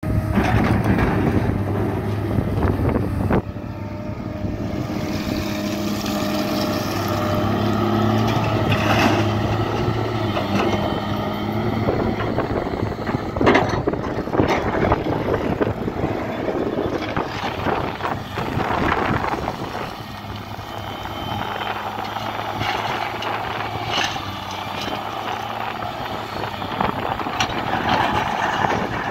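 Volvo crawler excavator's diesel engine running steadily under hydraulic load while the bucket digs, with dirt and stones scraping and clattering now and then.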